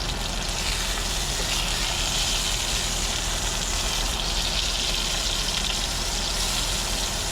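Hamburger patties and bacon sizzling steadily in a frying pan.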